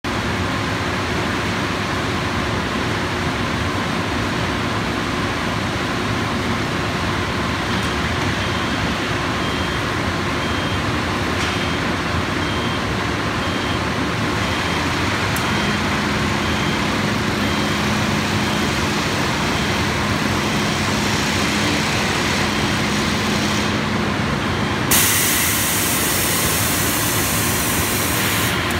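Steady, loud running noise of an industrial conveyor oven and its powered roller conveyor. A low hum comes in just past halfway, and a faint short beep repeats about once a second. About three-quarters of the way through, a sudden burst of hissing starts and lasts a few seconds.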